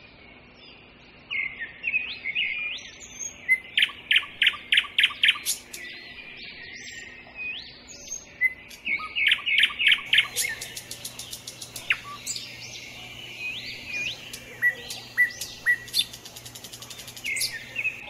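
Small birds chirping and singing: short upswept whistled notes, with quick runs of repeated chirps, several notes in a row, twice in the middle.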